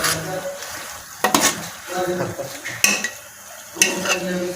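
Chicken and masala mixture sizzling as it fries in a pot while being stirred, with three sharp scrapes or knocks of the spoon against the pot.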